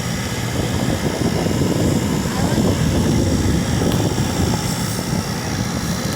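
TCL portable air conditioner running, its fan blowing with a steady rushing whoosh and a thin, steady high whine over it.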